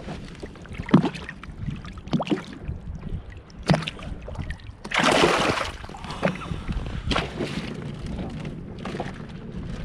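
Wind rumbling on the microphone aboard a fishing boat, with a few sharp knocks and a loud rush of noise about five seconds in.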